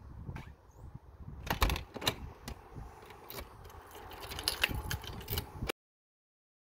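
Keys jangling with sharp clicks and clunks from a front door's lever handle and lock as the door is shut and locked with a key. The sound cuts off suddenly near the end.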